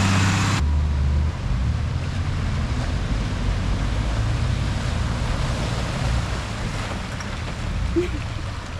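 Toyota four-wheel-drive truck driving: a low, uneven engine rumble under a steady rushing noise. The sound changes abruptly about half a second in.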